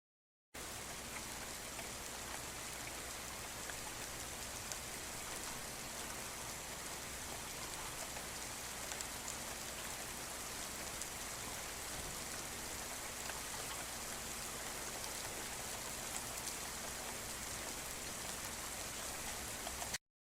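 Steady rain falling in woodland, an even hiss with scattered faint drop ticks. It starts abruptly about half a second in and cuts off just before the end.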